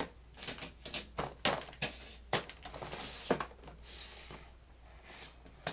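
Irregular clicks and light knocks of plastic fidget toys being handled, with a short hissing slide about halfway through.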